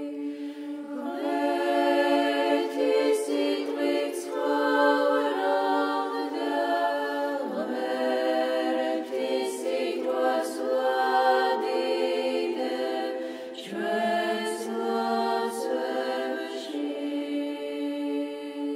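Choir singing a slow unaccompanied chant in several voice parts, in long held phrases, with new phrases beginning about seven and about fourteen seconds in.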